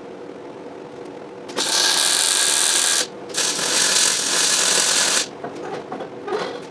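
MIG welder laying two short tack welds on steel pipe: a crackling, sizzling arc that starts and stops abruptly, about a second and a half and then about two seconds long, with a brief pause between.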